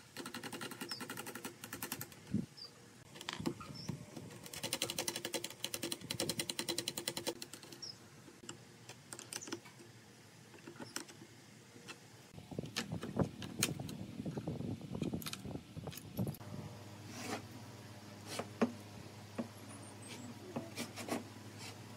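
Nuts being run onto and tightened on the steel bolts at the pivots of a wooden folding chair: two runs of rapid, even metallic clicking. After that come scattered knocks and clatter as the wooden frame is handled.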